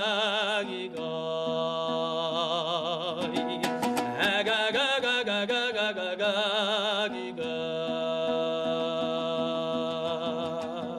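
Kazakh song: a singer holds long notes with vibrato over steady sustained accompaniment. It ends near the close with a final note.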